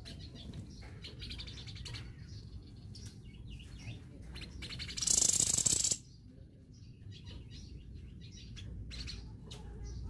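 Caged songbird giving short chirps and calls, with one loud, harsh burst lasting about a second midway through.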